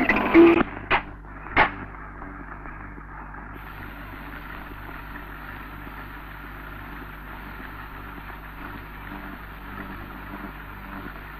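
A loud passage of music cuts off about half a second in. Two sharp clicks follow, then steady hiss over a low hum: the surface noise of an old film soundtrack with no recorded sound on it.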